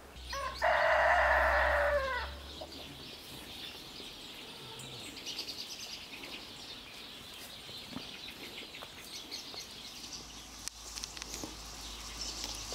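A rooster crows once, a call of about a second and a half near the start, much louder than anything else. After it only a faint outdoor background with light high chirps and ticks remains.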